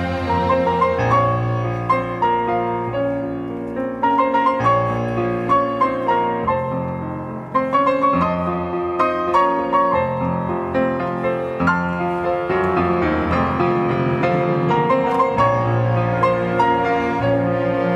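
Grand piano playing a flowing passage of quick notes with a symphony orchestra, the strings holding sustained low notes beneath.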